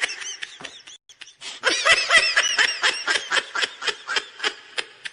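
High-pitched laughter: a rapid string of short 'ha' pulses, about six a second, that breaks off about a second in, then starts again and slows and fades until it stops near the end.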